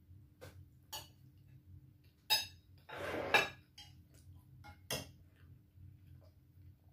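A metal spoon clinking and scraping against a glass serving bowl and plate as mung bean soup is spooned up. There are light clicks, a sharp clink a little past two seconds, a longer scraping rattle just after it, and another sharp clink about five seconds in.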